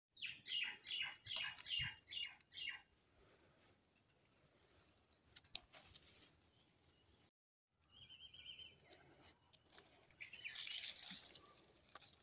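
A bird calling: a quick series of about eight short falling notes in the first three seconds, then one brief note later on. A single sharp click comes about halfway through.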